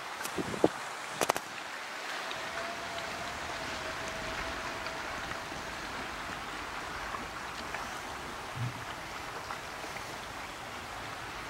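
Steady outdoor ambience, an even hiss of wind and distant water, with a faint steady hum from about two seconds in and a few sharp clicks near the start.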